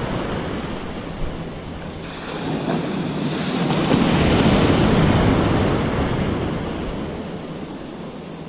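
Ocean surf breaking and washing in the shallows. A wave swells and breaks close by about four seconds in, then its wash fades away.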